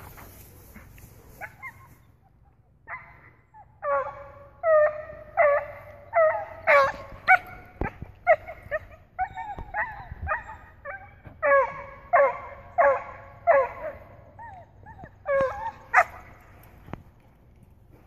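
A dog giving a long run of excited, honking, seal-like barks, about twenty of them, one or two a second. They start about three seconds in, with a short pause near the end.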